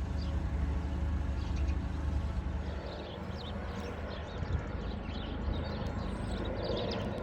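Small birds singing and chirping, with many short calls in the second half, over the steady low running of the narrowboat's diesel engine.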